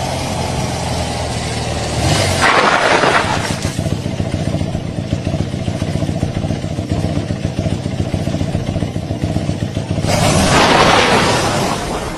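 A vehicle engine running unevenly with an unusual noise, surging louder about two seconds in and again near the end.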